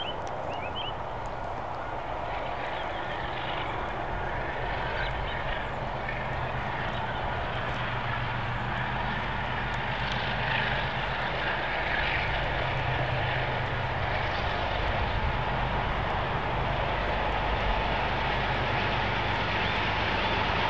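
Two DXC-class diesel-electric locomotives heading a train as it approaches, their engine drone growing steadily louder, over the steady ringing of the level crossing alarm. A few bird chirps at the very start.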